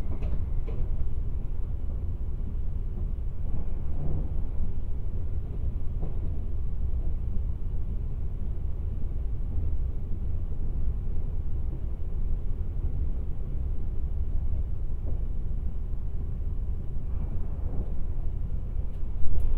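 Steady low rumble of a Kintetsu 26000 series Sakura Liner electric train running on the line, heard from inside the passenger cabin. There are a few faint clicks near the start and a short louder knock near the end.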